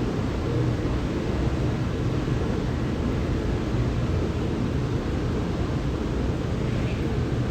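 Steady low rumble with a hiss above it on a railway station platform, unchanging throughout.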